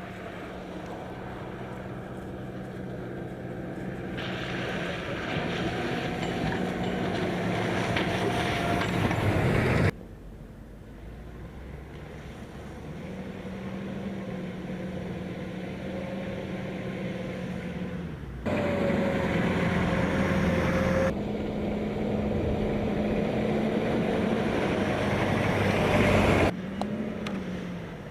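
Military vehicle engines running, heard in several clips that cut abruptly from one to the next. The engine hum is steady and grows louder over the first several seconds.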